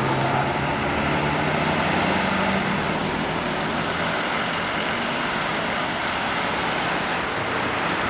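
Tour bus engine and tyre noise as the bus drives away, mixed with other passing road traffic; a steady drone whose low engine tone rises a little in the first few seconds.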